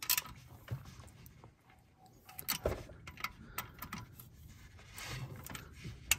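Ratchet wrench clicking in short, irregular runs, with metallic clinks of the socket and tools, as drain bolts are tightened back into a tractor's engine oil pan.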